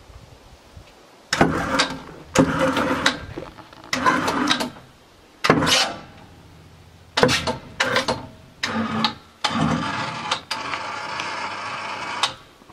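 Winch reeling in its cable to roll a log over on a sawmill bed, running in about seven short bursts and then one steady pull of about three seconds near the end.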